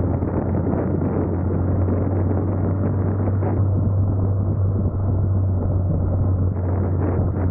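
A motorcycle riding along at a steady speed: its engine runs as a constant low hum, with wind rushing over the microphone.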